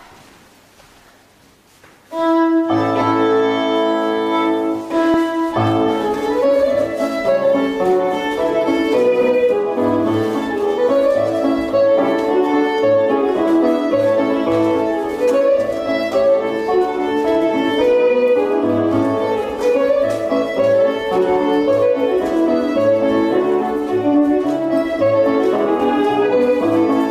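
Scottish country dance music on fiddle and piano: a long held opening chord starts about two seconds in, then a brisk tune with a steady beat strikes up a few seconds later.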